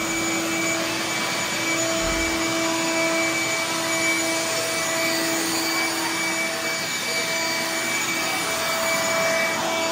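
A vacuum cleaner running steadily: a continuous rush of air with a motor whine over it, used to clean up.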